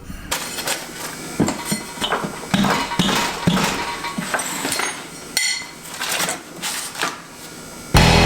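Irregular knocks and clatter, a few strikes a second, as hand tools and parts are handled during a mower tire repair. Background music with guitar starts near the end.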